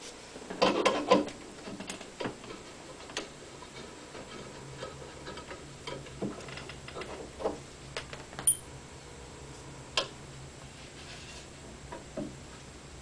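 Clicks, taps and light wooden knocks of a screwdriver and hands at the wooden frontrail beneath the keyboard of a c1870 Streicher fortepiano, as the frontrail screws are undone and the rail is loosened. A louder cluster of rattling clicks comes about a second in, then single sharp clicks every second or two.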